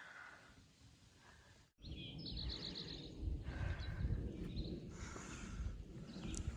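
A songbird singing a short, rapid trill of repeated high notes over steady, rumbling outdoor noise that starts abruptly about two seconds in.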